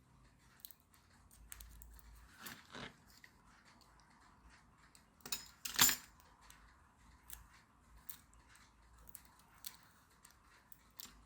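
Faint, scattered small clicks and snips of a blade cutting into and handling a thin plastic anti-theft security tag, with a sharper click a little before halfway.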